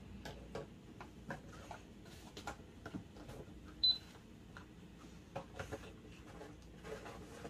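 Light plastic clicks and taps from handling toy food boxes and pressing the keys of a toy cash register, with one short, high electronic beep from the register about four seconds in.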